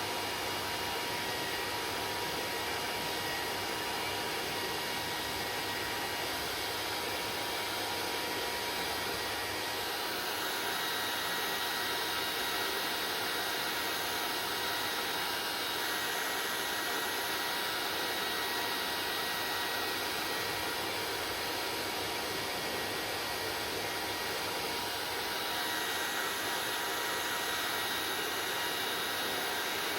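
Electric hair dryer running steadily, a continuous blowing hiss with a faint high whine on top; its tone shifts slightly about a third of the way in and again near the end.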